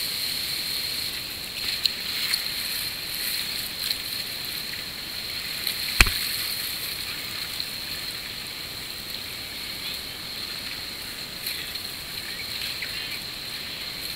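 Whitewater rapids rushing, a steady hiss of moving river water heard from a kayak being paddled through them, with one sharp knock a little before halfway.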